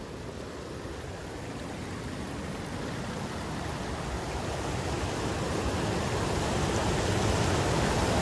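Mountain stream rushing, a steady wash of water noise that grows steadily louder.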